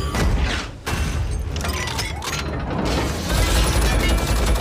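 Action-film battle sound effects: a heavy low rumble with a run of crashes and impacts in the first second or so, and explosion and smashing-debris sounds, with music underneath.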